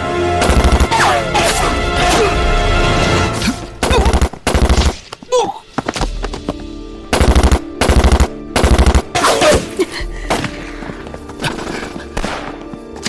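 Repeated short bursts of automatic gunfire, several rapid shots to a burst, with gaps between bursts, over dramatic background music.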